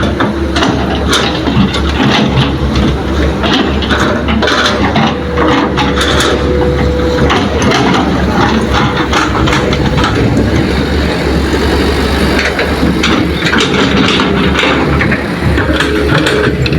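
Heavy diesel engines of excavators and a dump truck running steadily under load while loading soil, with frequent knocks and clanks throughout and a brief steady whine about a third of the way in.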